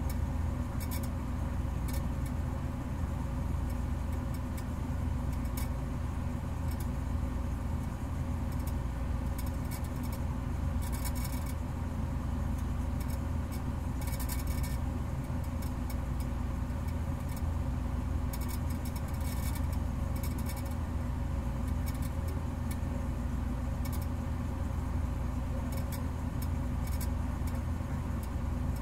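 A steady low machine hum with faint crackles and clicks scattered over it.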